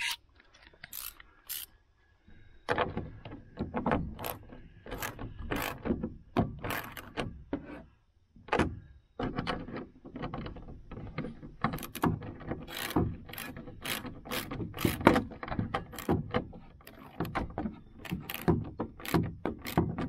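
Socket ratchet clicking in quick back-and-forth strokes as nuts are tightened onto the canopy's mounting bolts. It starts after a short quiet moment and keeps on in bursts of clicks.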